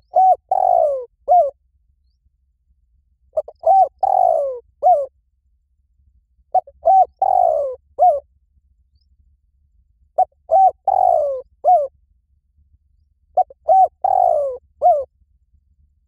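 Spotted dove cooing: five repeated phrases about every three and a half seconds, each of two short coos, a longer falling coo and a short closing coo.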